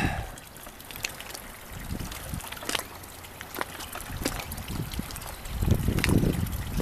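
Water trickling and lapping, with many small scattered clicks and splashes. A low rumble swells about six seconds in.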